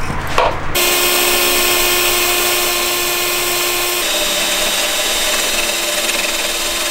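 Cordless drill running steadily as it drills into a car's sheet-steel frame rail, with a motor whine that starts just under a second in. Its tone changes slightly about four seconds in.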